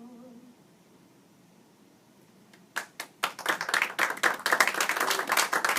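The last held sung note ends about half a second in; nearly three seconds in, a small audience breaks into applause that quickly grows into steady clapping.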